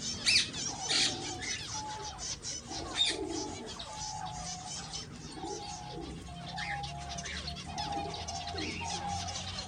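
A flock of aviary finches, zebra finches among them, chirping with many quick, overlapping short calls, a few louder ones near the start and about three seconds in.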